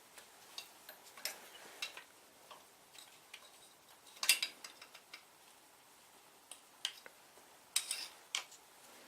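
Scattered small metallic clicks and clinks of hand tools and parts being handled during motorcycle engine disassembly work, with two louder clacks about four seconds in and just before the end.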